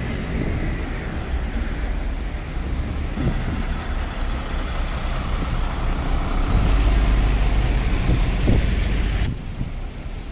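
Diesel engines of yellow Istanbul city buses running with a steady low rumble. The rumble grows louder from about six and a half seconds in, close beside a bus's rear engine compartment, then drops off sharply near the end. A high hiss sounds in the first second.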